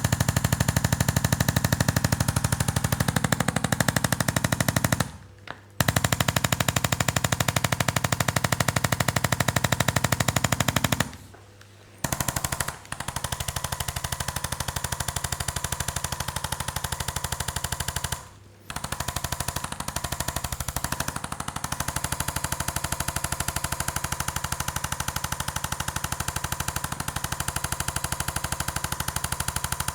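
A rapid, steady mechanical hammering of many even pulses a second. It cuts out briefly three times, about five, eleven and eighteen seconds in, then carries on.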